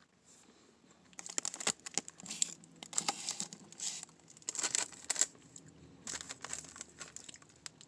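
Candy packaging crinkling and rustling as it is handled, starting about a second in and going on in quick crackly bursts.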